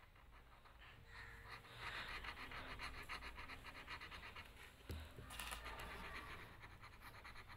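Black marker pen scribbling on paper in rapid back-and-forth strokes, shading a small area solid black.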